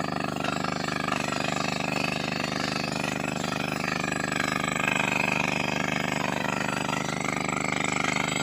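Mining drill rig running steadily: a continuous engine drone with a fast, even pulsing from the drilling, a little louder about five seconds in.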